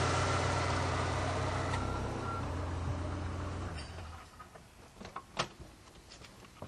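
Car engine idling with a steady low hum that stops about four seconds in, followed by a few light clicks and knocks.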